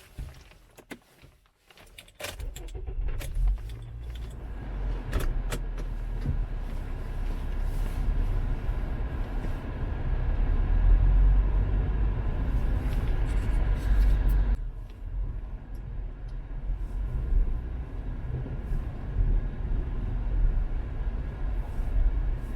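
A car's engine starts about two seconds in and runs with a steady low rumble, heard from inside the cabin. Clicks and jingling from keys and the car's controls come through the first few seconds.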